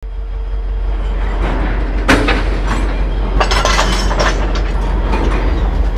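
A train running with a steady low rumble, with metallic clanks and rattles from the cars: a sharp clank about two seconds in and a cluster of rattling clanks in the middle.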